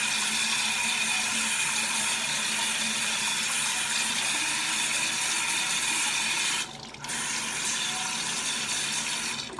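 Bathroom sink tap running steadily into the basin. The flow breaks off for a moment about seven seconds in, comes back, and shuts off near the end.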